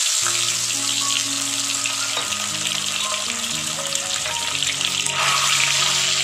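Whole hard-boiled eggs, scored and coated with salt, turmeric and chilli powder, sizzling in hot mustard oil in a kadai, with a steady hiss that grows a little louder about five seconds in.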